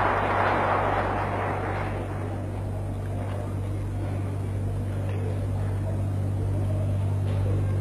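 Audience applauding, loudest in the first second or two and then dying away, over a steady low hum.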